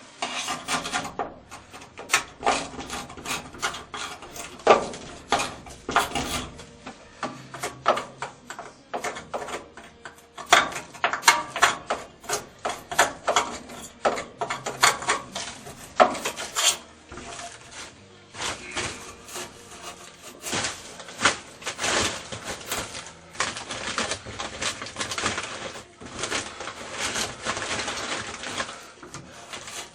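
Rust being scraped off the metal top of an old Whirlpool washing machine, in quick, irregular, rasping strokes.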